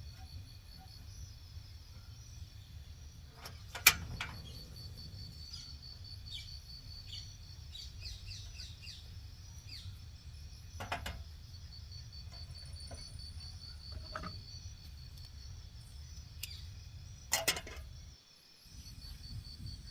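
Insects trilling steadily in a high, finely pulsing note, with a few brief bird chirps and a low rumble beneath. Two sharp knocks, about four seconds in and again near the end.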